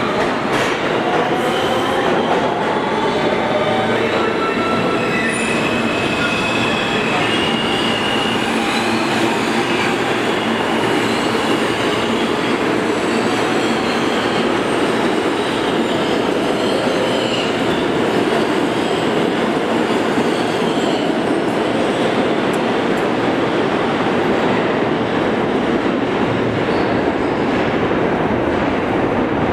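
Subway train noise in a station: a steady loud rumble and hiss of rolling stock, with high metallic wheel squeal over the first ten seconds or so.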